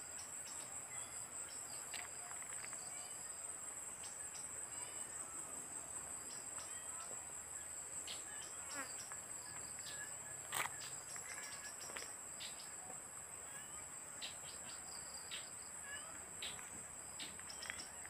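Steady high-pitched chorus of forest insects, with scattered short bird chirps and whistles over it. A single sharp click stands out about ten and a half seconds in.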